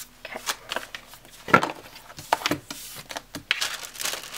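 Paper sticker sheets being handled and laid down: irregular rustles and light taps of paper, with a longer sliding rustle near the end.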